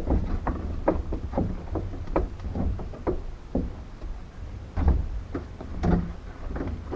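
Canvas soft top of a Citroën 2CV being worked free and handled: irregular rustling, scraping and soft knocks, the loudest a couple of knocks about five and six seconds in, over a low rumble.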